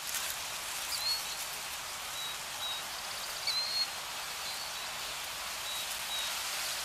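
Steady hissing nature ambience, like wind or rain, with a few thin, high bird-like chirps about a second in and again near the middle. It accompanies an animated logo outro.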